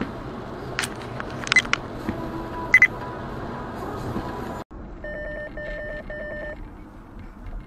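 Steady rain-and-road noise inside a moving car, with a few sharp clicks. After a sudden cut, three short electronic beeps sound in quick succession, about half a second apart.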